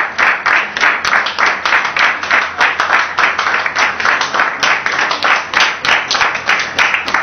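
A crowd clapping together in a fast, even rhythm.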